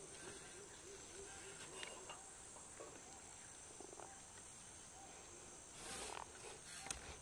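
Steady high-pitched drone of forest insects, with a low call repeated about four times a second for the first two seconds. A brief rustle comes about six seconds in.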